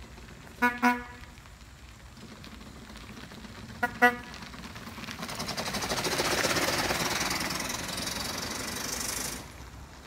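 Two double toots of a horn, about a second in and about four seconds in, then a rising and falling hiss as the 1899 Locomobile steam carriage drives past close, its steam engine running and wheels rolling on gravel; the hiss cuts off suddenly near the end.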